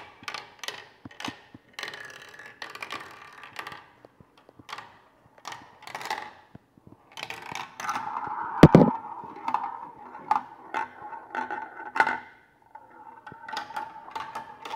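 Marble clicking and clattering down a plastic marble run, with one loud knock about eight and a half seconds in, then a steady rolling whir as it runs round the track.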